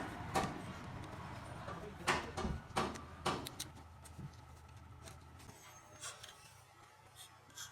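A few sharp knocks and clicks, like metal parts and tools being handled during starter motor repair work: four in the first three and a half seconds, then fainter ticks, over a low hum that fades out past the middle.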